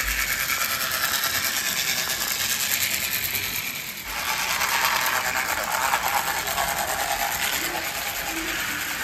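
Toy train running on sectional toy track: a dense, steady rattle of the locomotive's gears and its wheels clicking over the rail joints. It dips briefly about four seconds in.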